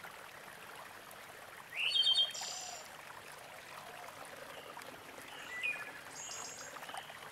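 A drink poured from a glass jug into drinking glasses, a faint steady trickle. A bird chirps over it, loudest with a quick rising call about two seconds in, and again more softly near six seconds.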